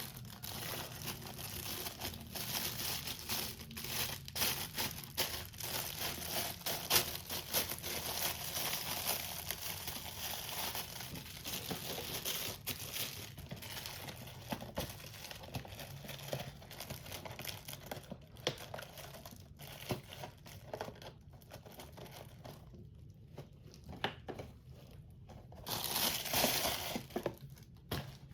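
Plastic packaging crinkling and tearing as it is handled and pulled off, with a louder burst of crinkling near the end.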